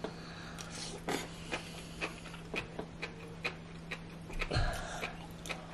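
Close-miked eating sounds of noodles from tteokbokki being slurped and chewed: many short wet mouth clicks and smacks at an uneven pace, with a brief louder slurp about four and a half seconds in. A faint steady hum runs underneath.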